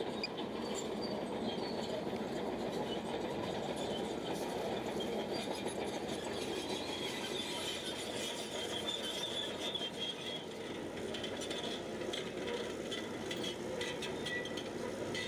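Shantui crawler bulldozer working, its steel tracks squealing high over the steady running noise of the machine.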